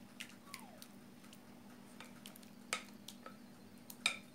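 Faint clinks and taps of a glass mixing bowl and spatula as cassava batter is scraped out into a metal baking tray, with two sharper clinks, one near three seconds in and one near the end, over a low steady hum.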